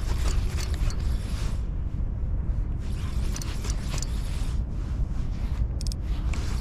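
Spinning reel cranked in stretches as a lure is retrieved, its gears and bail giving a ratcheting whir that stops and starts. Under it runs a steady low rumble of wind on the microphone.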